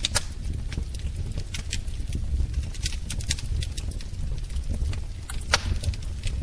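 Wood fire burning in a fireplace: a steady low rumble of flames with irregular sharp crackles and pops, the loudest pop about five and a half seconds in.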